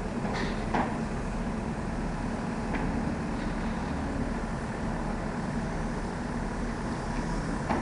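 Steady hum of running machinery with an even rushing noise beneath, and a few faint clicks near the start and a little before the middle.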